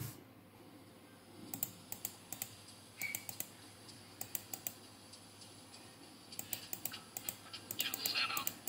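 Computer keyboard being typed on: irregular clicks in quick clusters. A wavering high-pitched sound comes in near the end.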